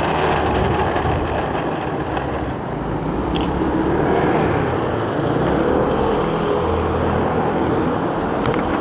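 Inline skate wheels rolling over pavement: a steady gritty rumble, with a sharp click about three and a half seconds in.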